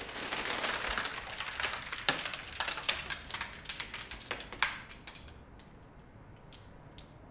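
Crackling, fizzing noise full of small sharp clicks, which dies away after about five seconds and leaves only a few faint ticks.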